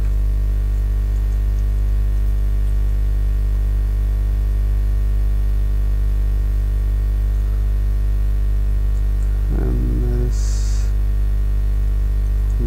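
Loud, steady electrical mains hum with a ladder of overtones, picked up by the recording microphone. About nine and a half seconds in, a brief murmur of voice, followed by a short hiss.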